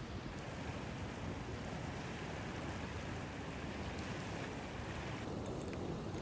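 Strong wind blowing steadily, a continuous rushing noise.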